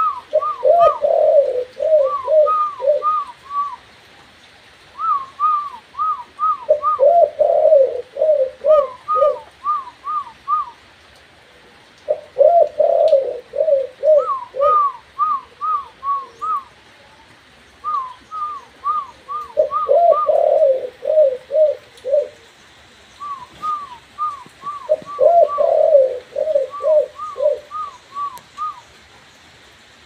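Spotted dove cooing in bursts of about five quick coos, the bursts coming every five to six seconds. Between the bursts comes a higher-pitched run of four to six short falling notes.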